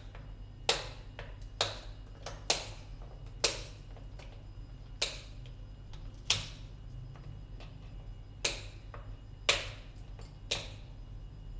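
Hard king crab leg shell snapping sharply, about a dozen irregular cracks roughly a second apart, as the legs are cut with kitchen scissors.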